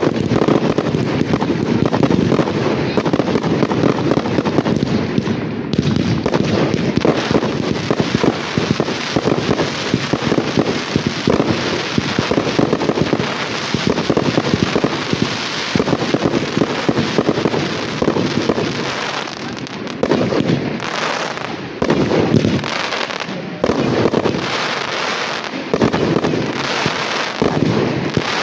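Fireworks display: a dense, continuous barrage of rapid bangs with barely a pause.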